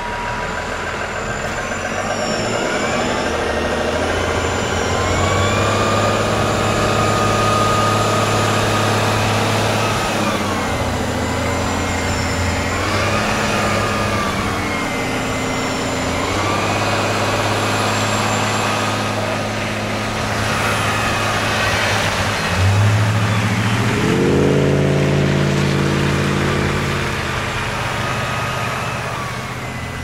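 Orion VII hybrid-electric city bus climbing a snowy hill. Its electric drive whine rises and falls over and over, as the drive wheels slip and catch on the snow, over a steady engine drone. About three-quarters of the way through, another vehicle's lower engine sound joins in.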